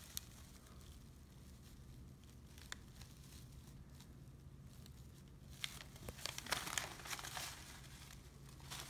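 Faint rustling and crinkling of a cloth bag and paper being handled, with a few soft clicks. It grows a little louder in the second half as the bag is folded closed.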